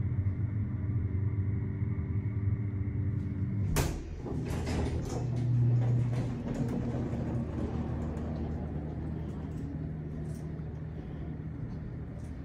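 Elevator arriving: a steady low hum as the car travels, a sharp click about four seconds in as it stops, then the sliding doors opening with rattling clicks and a brief low whir from the door motor.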